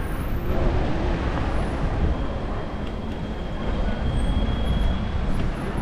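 Wind rumbling on the microphone of a bicycle riding along a city street, with faint street sounds around it. A faint, high steady tone runs for about three seconds in the middle.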